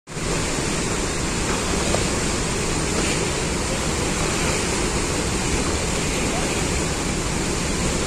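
Water released through open dam spillway gates, pouring out and churning white in the river below: a steady, unbroken rush of water.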